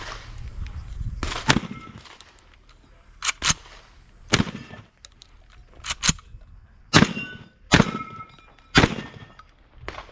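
A string of shotgun shots at uneven spacing, several quieter cracks followed near the end by the three loudest, about a second apart, each with a short ringing tail.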